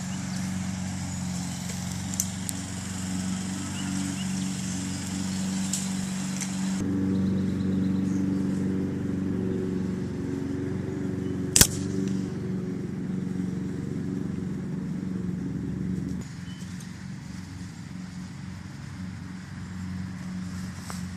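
A single gunshot a little past halfway, sharp and the loudest sound, over a steady low engine hum that changes level twice. The shot comes from a rifle being zeroed.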